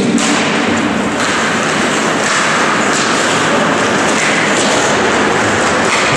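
Live sound of an ice hockey game in an indoor rink: a steady, echoing wash of skates scraping on the ice and hall noise, with an occasional thud.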